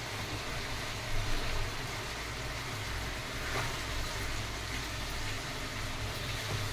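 Chicken pieces with freshly added masala paste frying in a steel pan: a steady sizzle, with a spatula stirring and scraping through the mix a couple of times, over a steady low hum.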